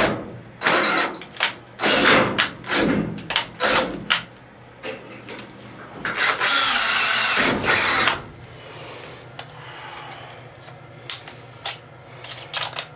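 DeWalt cordless drill drilling into a steel stud and track. The motor runs in several short bursts over the first four seconds, then in one steady two-second run about six seconds in, and a few light clicks follow near the end.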